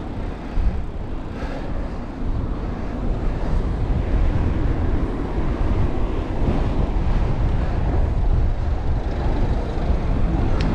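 Steady wind rumble on a GoPro action camera's microphone while riding a bicycle, mixed with road noise.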